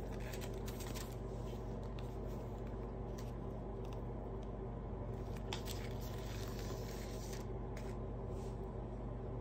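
A zip-around wallet being handled: short rustles, clicks and scrapes as it is opened, turned over and flexed in the hands, over a steady low hum.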